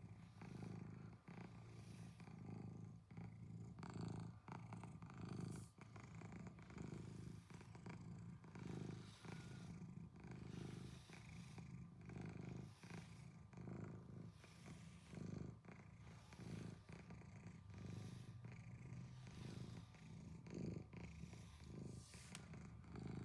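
Domestic cat purring steadily while being brushed, the low purr swelling and fading with each breath about once a second.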